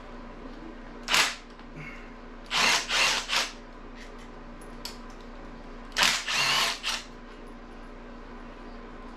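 Handheld power tool, such as a drill or driver, run in short bursts to back out the bolts of a 5.3 LS engine's steam port cover: one burst, then three, then two.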